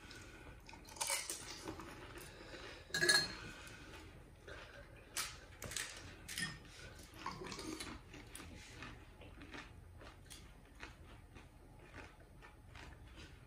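Faint, scattered clinks and taps of a spoon and crisp golgappa puris against glass bowls of pani as they are filled and eaten. Two louder brief sounds come about one and three seconds in.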